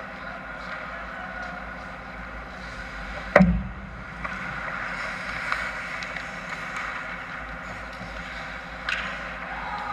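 Indoor ice hockey rink ambience during a game: a steady hum with faint game noise from play at the far end of the ice. A single sharp, loud knock close by about a third of the way in, and a smaller click near the end.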